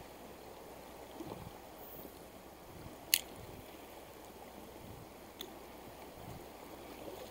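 Steady rush of a fast river's current, with two sharp clicks about three and five seconds in.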